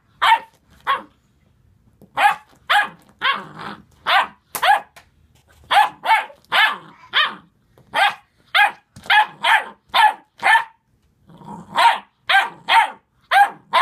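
An 8-week-old puppy barking at a toy frisbee: short, high-pitched yappy barks about two a second, in runs broken by brief pauses about a second in and about eleven seconds in.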